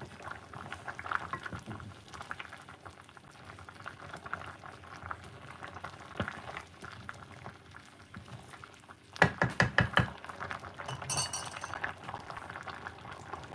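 Vegetable broth bubbling at a boil in a large aluminium pot, stirred with a wooden spoon. A quick run of knocks about nine seconds in.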